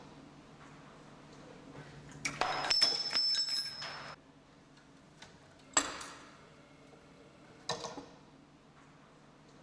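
Moving parts of a Rube Goldberg kinetic sculpture clinking and clattering. There is a rattling run of clicks with a high ringing note from about two to four seconds in, then two single sharp knocks, each ringing briefly.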